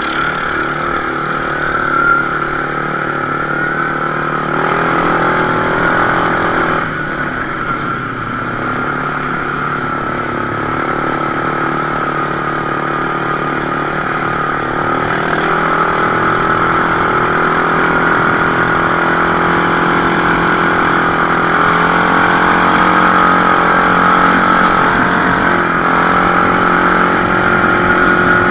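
Quad bike (ATV) engine running continuously under way, mostly steady, with its pitch stepping up and down a few times as the throttle changes.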